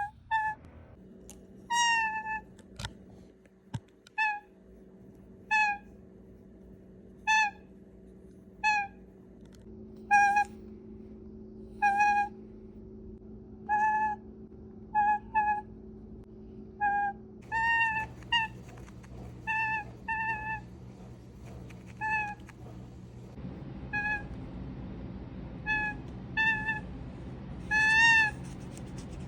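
Pet toucan giving a long series of short, pitched happy honks, roughly one a second, some coming in quick pairs. The honks are the bird's sign of contentment.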